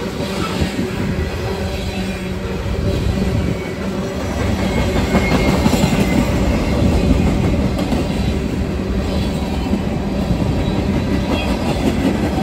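Freight cars of a passing CSX train rolling by: a steady rumble of steel wheels on the rails, swelling a little in the middle.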